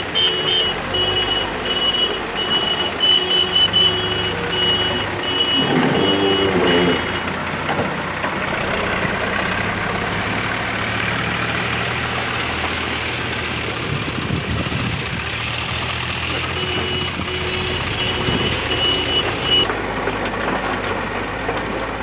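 JCB backhoe loader's diesel engine running steadily as the machine works, with a high-pitched reversing alarm beeping in quick pulses for the first several seconds and again near the end.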